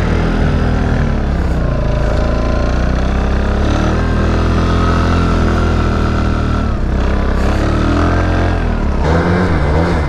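An Arctic Cat F1100 four-stroke snowmobile engine revving up and easing off as the sled pulls away and carves, over a steady engine drone. Near the end the sound switches to the snowmobile's engine heard up close from on board, its pitch wavering.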